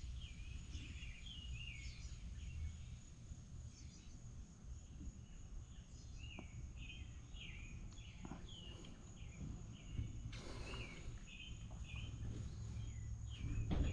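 Small birds chirping over and over, a string of short high calls, over a low steady hum.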